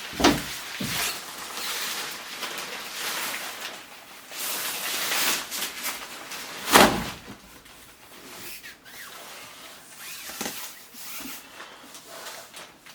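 A pop-up collapsible green screen being handled and twisted, its fabric and sprung frame rustling and scraping. There are two sharp knocks, one just after the start and a louder one a little before seven seconds in.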